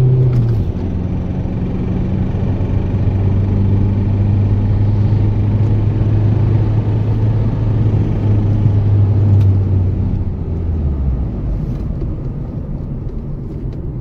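Ford Mondeo Mk3 2.0 TDCi four-cylinder common-rail diesel pulling under full load, its note steady, then dropping lower and quieter about ten seconds in. Heavy load with hot fuel is the condition in which this engine's worn, leaking Delphi injectors let rail pressure collapse and make it lose power and stall.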